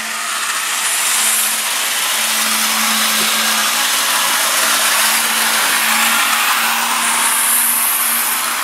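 Model trains running around the track: the whir of their small electric motors and the rattle of wheels on rail make a steady hiss over a constant low hum. It builds over the first second, then holds.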